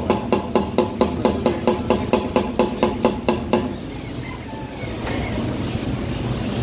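Rapid, regular knocking, about three strikes a second, each with a short ring, that stops about three and a half seconds in, over a steady low hum.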